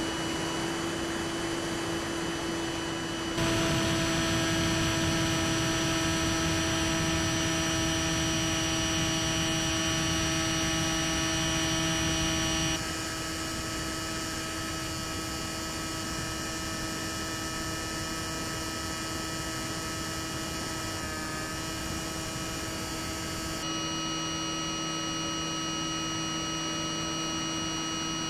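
Steady electric whine and hum from an electric RC plane (a Bixler 3 foam pusher) in flight, made of several fixed tones over a hiss. It steps louder about three seconds in, drops back after about ten seconds, and shifts in tone twice more near the end.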